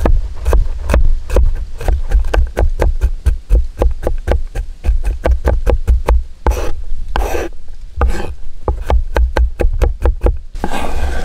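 A large steel chef's knife chopping garlic cloves on a wooden cutting board, in quick sharp knocks of about four a second with a dull thud of the board under each. Two longer, rougher strokes come a little past halfway, and the chopping stops just before the end.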